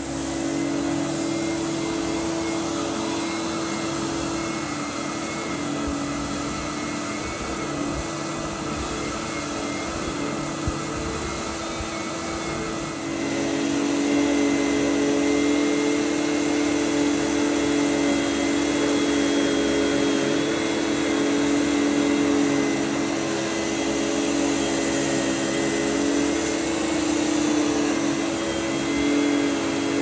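A 1993 Numatic Henry HVR200 cylinder vacuum cleaner running steadily with an electric power head, vacuuming dirt from carpet: an even motor hum with a steady tone. It gets louder about 13 seconds in and stays louder.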